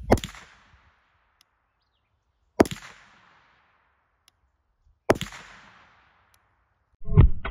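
Three shots from a Henry Homesteader 9mm semi-automatic carbine with a 16-inch barrel, about two and a half seconds apart, each with a short echo fading away. A brief knocking follows near the end.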